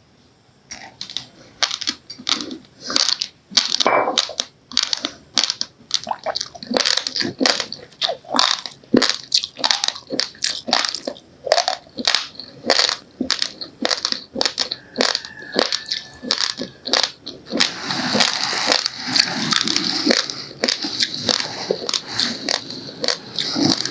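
Raw, uncooked rice grains being crunched between the teeth: a run of sharp crunches, about two or three a second, turning into denser, continuous crackling near the end.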